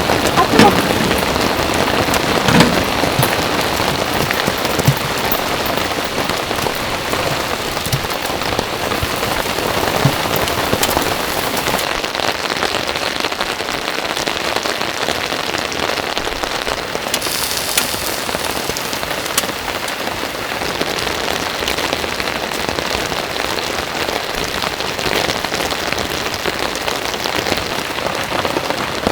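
Heavy rain falling steadily: a dense patter of many drops, with a few louder single drops landing in the first three seconds.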